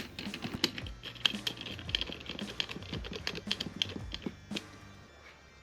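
Rapid, irregular clicks and taps of small plastic parts and screws being handled while a small plastic Bluetooth speaker is reassembled. The clicks thin out and fade near the end.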